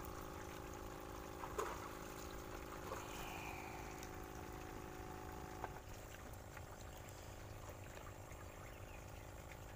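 Water trickling and bubbling in a bait bucket of live shrimp with an aerator tube, stirred by a hand, with a few small knocks. A faint steady hum stops about halfway through.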